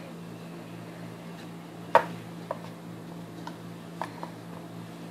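Rolling pin flattening a slice of bread on a wooden board, with a few light knocks of the pin against the board, the sharpest about two seconds in. A steady low hum runs underneath.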